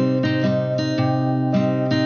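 Background music: acoustic guitar picking chords at a steady pace of about four notes a second.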